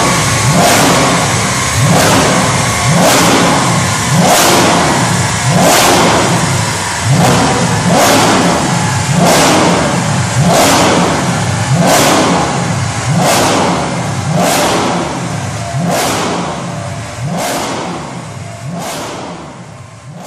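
Mercedes C63 AMG's 6.2-litre V8, tuned and fitted with a full iPE exhaust, revved hard over and over, about once every 1.2 seconds, each rev rising and falling in pitch. The sound fades out near the end.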